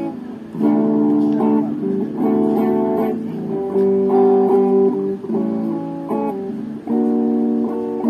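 Electric guitar with a clean tone strumming a run of ringing chords, a new chord struck about every second.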